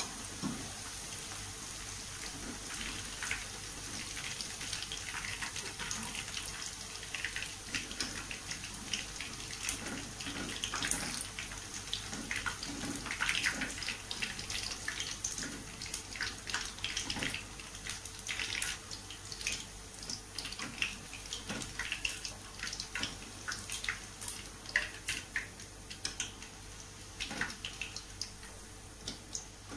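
Tempeh cubes deep-frying in hot oil in a wok: a steady sizzle with many sharp crackling pops as the fried pieces are lifted out with a wire strainer.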